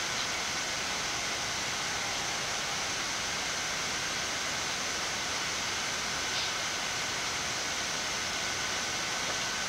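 Steady, even hiss of a Boeing 787-8 flight deck while the airliner holds on the runway with its engines at idle: ventilation and equipment-cooling noise, with faint steady high tones running through it.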